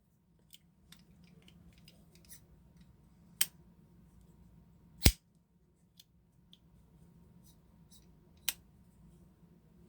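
Twosun TS85 flipper folding knife being flicked open and shut: three sharp snaps as the blade swings out or closes, the loudest about five seconds in and the last near the end, with light clicks of handling between.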